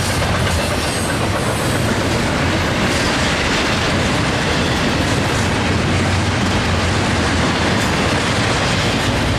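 Norfolk Southern double-stack intermodal train passing at speed: a steady, loud rumble of steel wheels on the rails with a few faint clicks.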